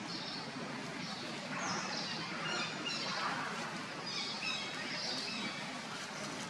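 Birds chirping in short repeated calls over steady outdoor background noise.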